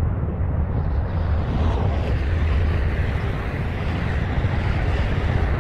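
Jet airliner taking off at a distance: a steady, low rumbling roar of its engines at takeoff thrust as it lifts off and climbs away.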